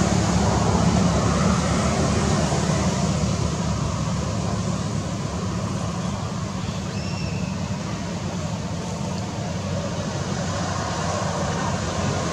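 Steady low rumbling background noise, with a brief faint high chirp about seven seconds in.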